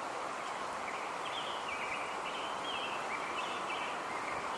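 Steady outdoor background noise, like running water, with faint high chirps of small birds starting about a second in.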